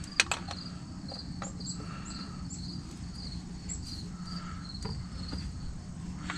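Crickets chirping steadily, about three chirps a second, over a low steady hum, with a couple of sharp clicks near the start.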